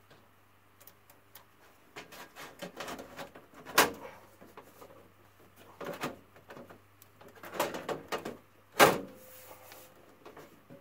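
Sheet-metal furnace access panel being handled and fitted back onto the unit: scraping and rattling with sharp metal knocks, the loudest about four seconds in and again near nine seconds.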